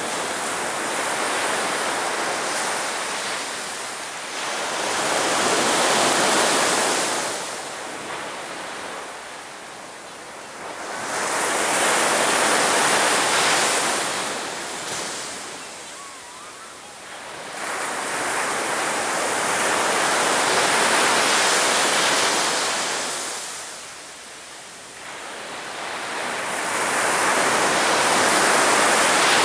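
Sea waves breaking on a beach, the surf swelling to a peak and falling away about every seven to eight seconds.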